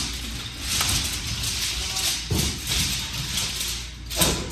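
Sharp thumps and taps of a wushu routine on a padded gym floor, feet landing and a swung flexible weapon striking, with a loud crack just after four seconds.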